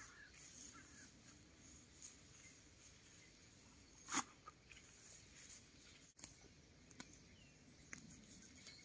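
Faint rustling and crackling of dry weeds and stalks being pulled up by hand from garden soil, with one sharp knock about four seconds in as a clump is shaken out.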